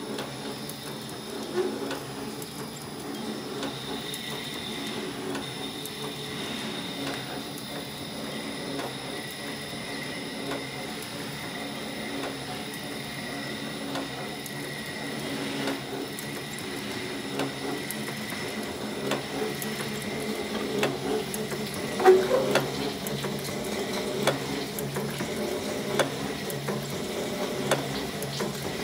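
Freshly overhauled Condor (SAS) soap stamper and its belt conveyor running under test: a steady mechanical hum with a thin whine on top and scattered light clicks. A sharper knock comes about 22 seconds in.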